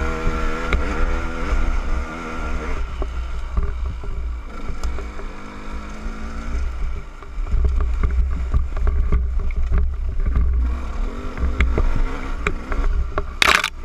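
KTM 200 EXC two-stroke enduro bike engine revving up and dropping back as it is ridden, over a heavy low rumble. A brief loud noise burst near the end.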